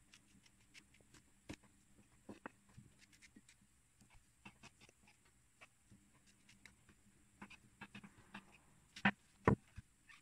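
Kitchen knife scraping and trimming fresh forest mushrooms by hand over a wooden cutting board: soft irregular scrapes and light clicks, with two louder knocks near the end.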